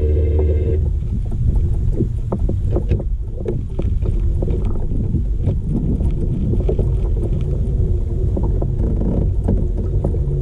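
Water lapping and slapping against a kayak's hull in irregular little knocks, over a low wind rumble on the microphone.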